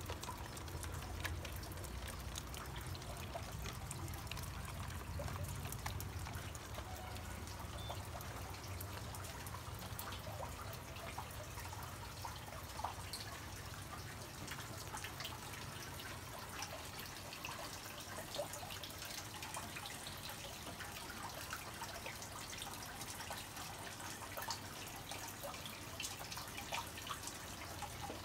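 Water trickling and dripping steadily, many small drips over a low hum.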